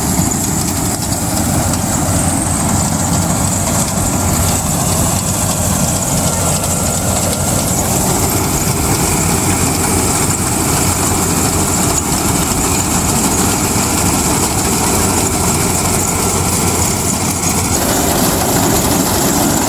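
Rice combine harvester running steadily at work, a loud, even engine-and-machinery noise with a slight shift in its sound near the end.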